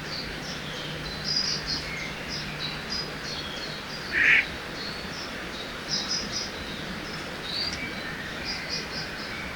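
Several small birds chirping in short high notes over the steady rush of a river, with one louder, short call about four seconds in.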